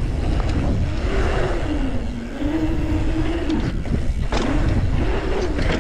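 Mountain bike's knobby tyres humming on a paved pump track, the pitch rising and falling as speed changes over the rollers and berms, over a steady low rush of wind on the microphone. Two sharp knocks about four seconds in, as the bike crosses a wooden berm feature.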